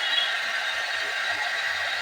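Hair dryer blowing with a steady hiss.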